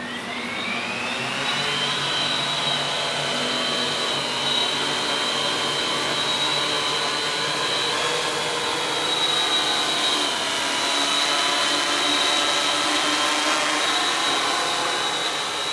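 Two multirotor drones' electric motors and propellers spinning up with a rising whine over the first second or so, then a steady, loud multi-pitched buzzing whine as they lift off and hover.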